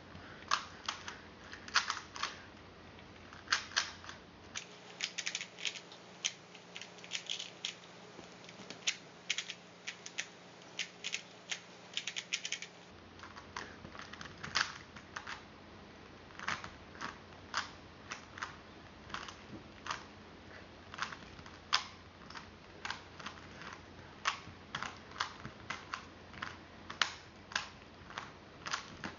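Rubik's Cube layers being turned quickly by one hand: a dense, irregular run of sharp plastic clicks and clacks, several a second.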